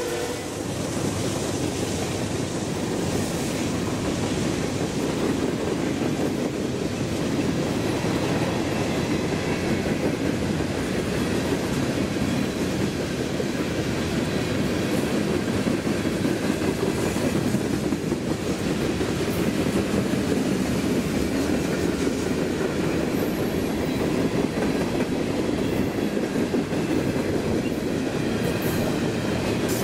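Freight train cars rolling past at close range: a steady rumble of steel wheels on the rails with clickety-clack, and a few faint high squeaks in the second half.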